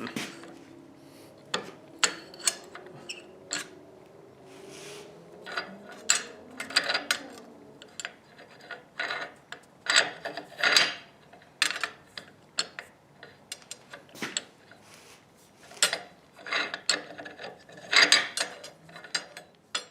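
Irregular metallic clanks, clicks and scrapes, as of steel parts and tools being handled, with some brief ringing and clusters of knocks near the middle and near the end.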